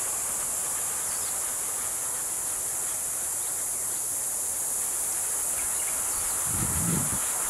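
Steady high-pitched insect chirring, with a brief low rumble near the end.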